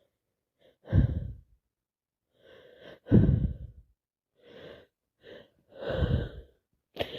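A woman with a head cold taking a series of sharp, gasping breaths, about six, roughly a second apart: the hitching breaths that build up to a sneeze.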